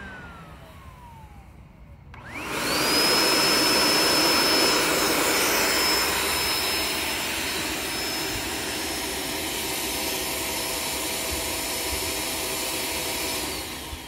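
Upright vacuum cleaner's motor spinning down with a falling whine, then starting up about two seconds in with a quickly rising whine and running steadily at nearly 1000 W, the limit of the 1000 W inverter powering it, before switching off near the end. The brief cut-out fits the inverter choking on the motor's start-up surge, which the owner says it typically does.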